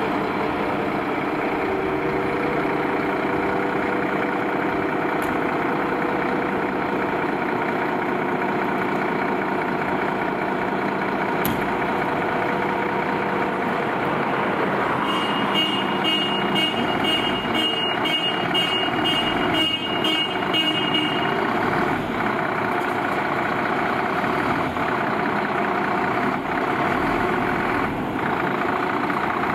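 Scania 114G 340 fire engine's diesel engine running as the truck pulls out of the station bay. A high-pitched electronic beeping sounds for about six seconds midway.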